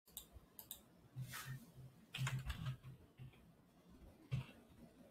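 Typing on a computer keyboard: irregular keystrokes in short clusters, each with a dull low thump.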